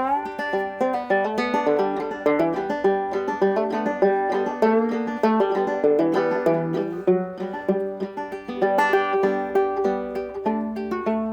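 Banjo played solo, a quick run of bright plucked notes rolling continuously.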